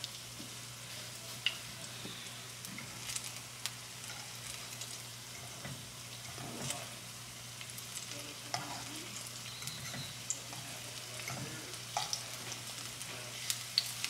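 Egg frying in a nonstick pan over a gas burner with a light sizzle, as a metal fork stirs and scrapes it, tapping against the pan now and then in sharp clicks.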